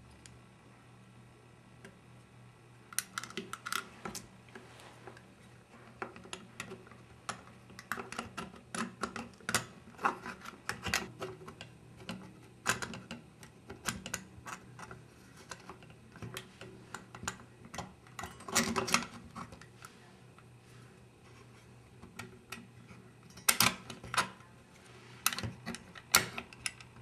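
Irregular light clicks, taps and scrapes of small parts being worked inside the open metal body of a Bolex D8L 8mm film camera as its horizontal gear is pushed into place and the plate refitted. They begin a few seconds in and come loudest in a cluster near the end.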